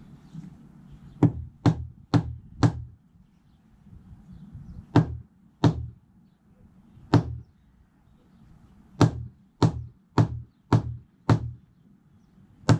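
Mallet tapping a Pennsylvania bluestone flag down into its mortar bed to bring it level. About thirteen sharp knocks in uneven groups: four quick ones, a few spaced ones, a run of five, then one more near the end.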